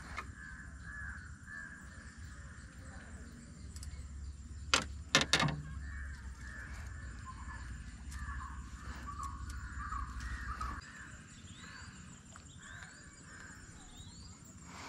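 A continual chorus of birds calling, with three sharp knocks about five seconds in that are the loudest sounds, and a low rumble that stops near the end.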